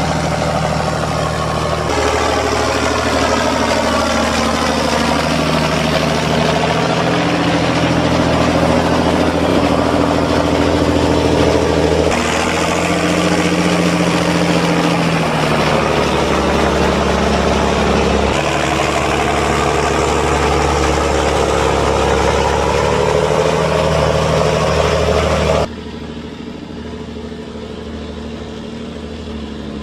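Fendt Favorit 614 LSA tractor's six-cylinder diesel engine running steadily under load while it grades a sand road. Its note rises and falls as the tractor passes close by. The sound becomes quieter about four seconds before the end.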